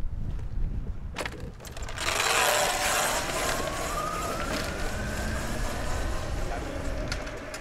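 Electric Aprilia motorcycle pulling away. Its electric motor's whine rises steadily in pitch as it accelerates, over a rushing noise that starts abruptly about two seconds in, and fades as the bike rides off.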